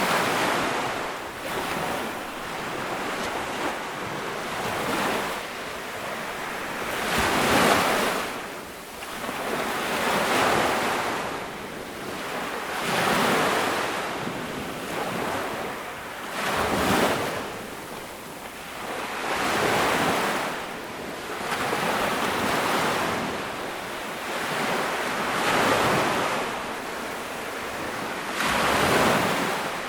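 Ocean waves breaking on a beach, with a surge of surf every two to three seconds that rises and falls away.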